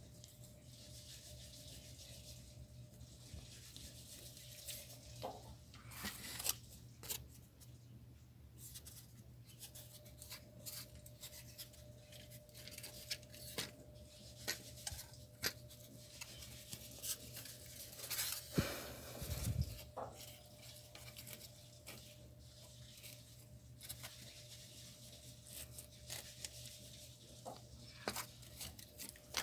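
Corrugated cardboard pieces being handled, slid and rubbed against each other, with scattered small taps and scrapes and a longer scrape about two-thirds of the way through, over a faint steady hum.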